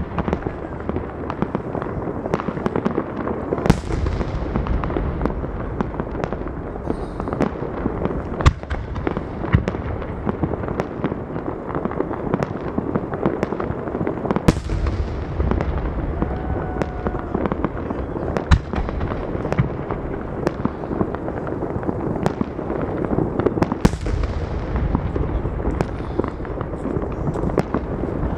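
Aerial fireworks display: shells bursting with loud sharp bangs every few seconds over continuous crackling and popping, several bangs trailing off in a long fading hiss.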